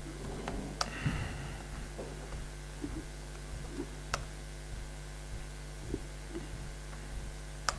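A steady low room hum with a few sharp, isolated clicks: a laptop keyboard's keys pressed now and then while a file is edited.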